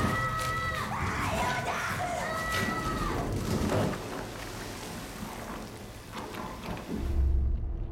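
Heavy rain falling and splashing on the ground. Near the start a high voice twice calls out in long held shouts that fall away at the end, and a deep rumble rises near the end as the rain hiss cuts off.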